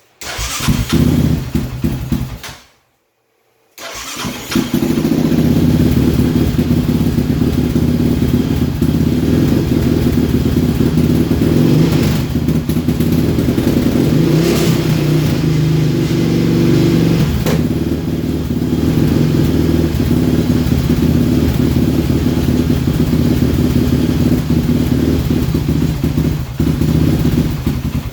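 Yamaha Raptor 700's single-cylinder engine starting and idling with an erratic thump, a harsher sound than its high compression alone would give, from a failing wire harness. It runs briefly, cuts out for about a second, runs again, and stops near the end.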